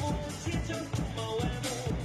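Music with a steady beat: an acoustic drum kit played along to a backing track that carries a bass line and a melody.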